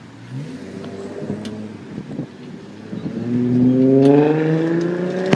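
Car engine accelerating as the car pulls away, its pitch rising steadily from about three seconds in, louder than the engine and traffic noise before it.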